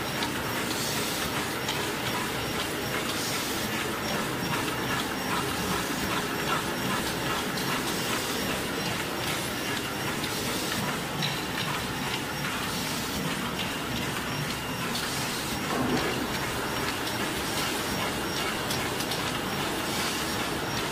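Automatic pocket tissue production line running: a steady, dense mechanical clatter of rapid clicks from the folding and packing machinery, with a brief louder sound about sixteen seconds in.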